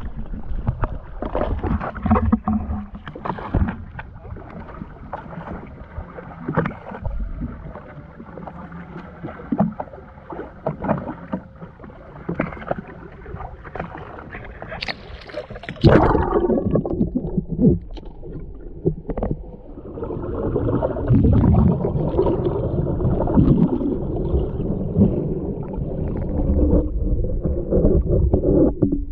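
Choppy seawater slapping and splashing against a GoPro's waterproof housing held at the surface, heard muffled through the housing. About sixteen seconds in, a loud splash comes as the camera goes under, and the sound turns to a dull underwater rumble with gurgling.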